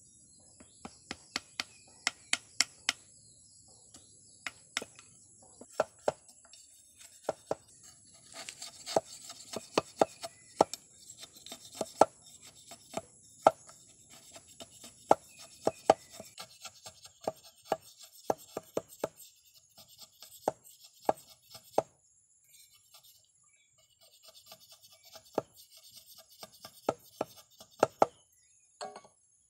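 Machete blade cutting and shaving a thin wooden stick against a log: a long run of sharp, irregular knocks and clicks. Scraping from the blade shaving the wood comes in between the knocks in the middle.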